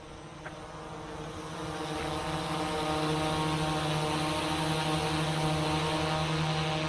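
Autel EVO II quadcopter drone hovering on low-noise propellers: a steady propeller hum made of several pitched tones, growing louder over the first three seconds, then holding steady.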